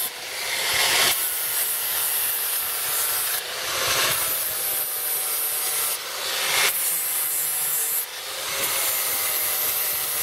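Angle grinder with an abrasive disc grinding the steel knife sections of a sickle bar mower's cutter bar to sharpen them. A steady grinding rasp over the motor's whine, changing every two seconds or so as the disc moves from one section to the next.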